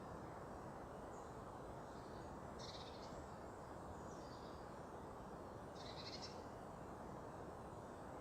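A bird giving short high calls, two clearer ones about three seconds apart with fainter calls between, over a steady low rumble of background noise.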